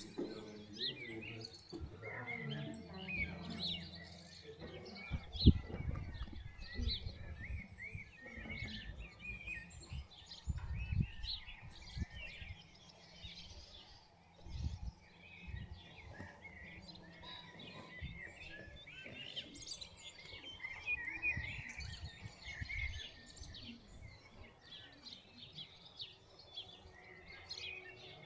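Many small birds chirping and singing throughout, with low irregular rumbles and a sharp thump about five seconds in.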